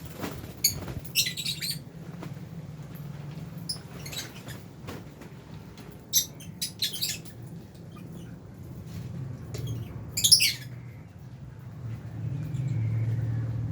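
Aviary lovebirds (Fisher's and albino) chirping in short, sharp, high bursts, in clusters about a second in, around six to seven seconds, and near ten seconds. A low steady hum runs underneath and grows louder near the end.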